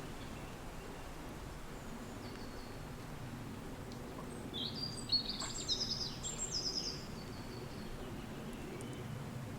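Steady wind blowing, with a songbird singing a short burst of quick, high notes about halfway through.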